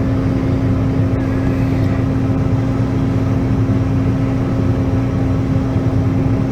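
Combine harvester running with a steady drone and a constant hum at one pitch.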